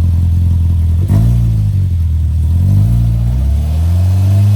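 Side-by-side UTV engine revving under load as the stuck Polaris tries to climb off a rock ledge. A knock about a second in, then the revs rise, dip and rise again, and hold higher near the end.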